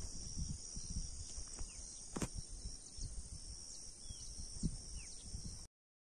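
Rural outdoor ambience: a steady high-pitched insect chorus with wind rumbling on the microphone, a few short bird chirps near the end and one sharp click about two seconds in. The sound cuts off suddenly shortly before the end.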